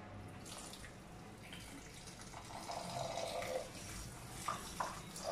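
Water running from a kitchen tap into the sink, getting louder about two seconds in, with a couple of light knocks near the end.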